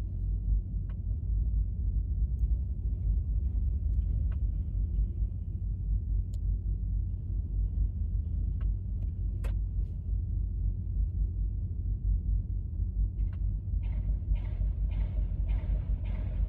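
Low, steady rumble of a wheel loader's diesel engine as it carries a railway wheelset, with a few sharp clicks here and there. Near the end comes a run of evenly spaced pulses, about two a second.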